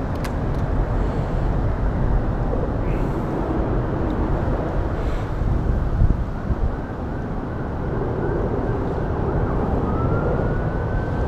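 Steady rumble of highway traffic passing over the concrete bridge deck overhead, a dense low noise that rises and falls slightly as vehicles go by. A thin whine rises slowly in pitch near the end.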